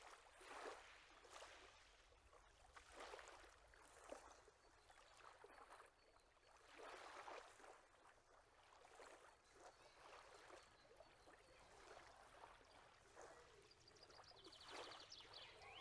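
Faint, irregular rustling of grass, swishing every second or two.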